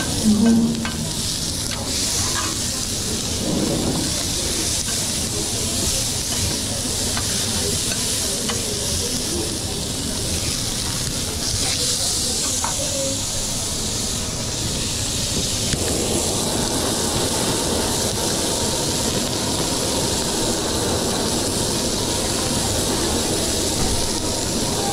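Food sizzling in a hot pan: a steady hiss with a few light clicks and knocks. A lower rumbling noise joins about two-thirds of the way through.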